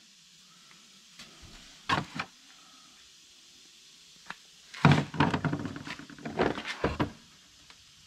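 Battery cable, terminal ends and small metal hardware being handled on a workbench beside a socket set. A double knock comes about two seconds in, then a run of irregular clattering and knocking in the second half.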